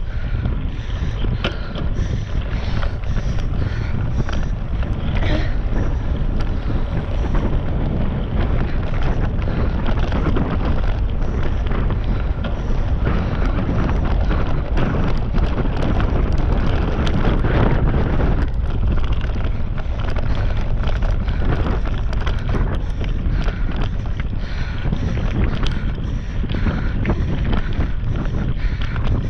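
Wind rushing over a GoPro action camera's microphone during a mountain-bike ride, a loud, steady rumble with scattered crackles from the bike and rough ground.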